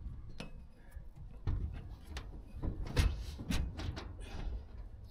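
Irregular knocks and thuds on a corrugated metal roof as boots and hands move on the sheeting and a solar panel is handled on the mounting rails, about six or seven hits spread across a few seconds.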